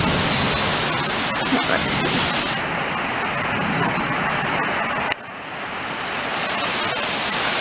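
Heavy rain pouring down in a thunderstorm, a steady loud hiss of rain. About five seconds in the sound drops suddenly, then builds back up.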